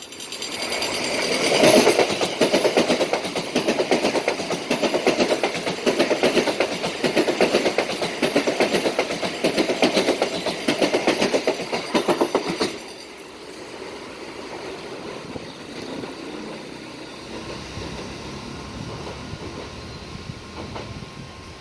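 Passenger train passing at speed, its wheels clattering rapidly over the rail joints, loud for about twelve seconds. Then the sound drops sharply to a low, steady rumble.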